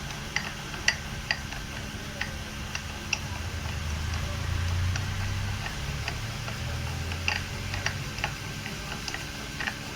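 Light, irregular metallic clicks and taps from a removed power steering rack being handled, over a low steady hum that grows louder in the middle.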